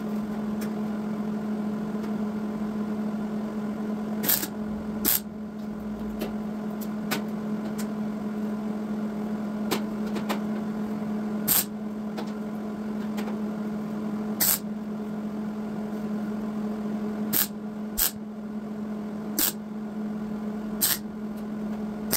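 MIG welder tacking sheet steel: about eight short sizzling bursts at irregular intervals, each a fraction of a second long, over a steady electrical hum.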